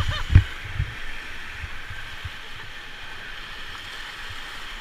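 Steady rush of river water, with a few low thumps in the first second, the loudest about half a second in.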